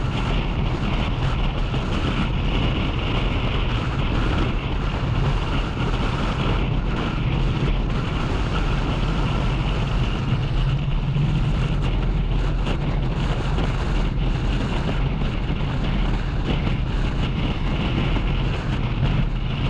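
Motorcycle engine running steadily at road speed, with wind rushing over the camera microphone.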